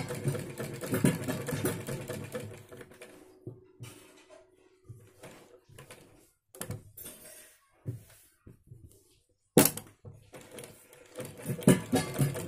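Domestic sewing machine stitching a fabric strip, its rapid needle clicking slowing and stopping about three seconds in. Then scattered small clicks and fabric rustling, with one sharp click a little before the end, and the machine starts stitching again near the end.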